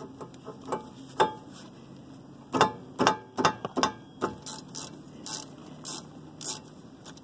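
Hand ratchet clicking in short runs as brake caliper bolts are loosened, with a few sharp metal knocks and clinks of tool against caliper, the loudest in the first half.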